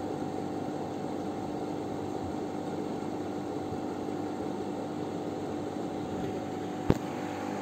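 Steady machine hum with a low, even hiss, holding a couple of constant tones; a single sharp click near the end.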